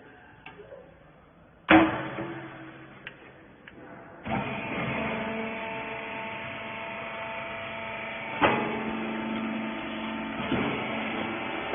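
A loud bang with a ringing tail, then a hydraulic rag baler's power unit starts and runs with a steady, multi-toned hum, broken by two sharp knocks.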